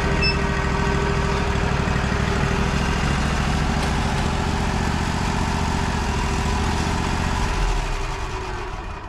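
An engine running steadily, then winding down near the end as the power is cut back.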